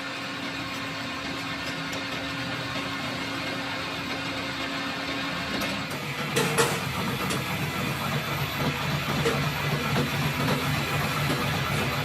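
A machine motor running steadily. Its hum shifts to a lower tone about six seconds in, with a sharp knock just after.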